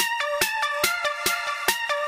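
Electronic background music with a steady drum-machine beat, a little over two beats a second, under held synth notes.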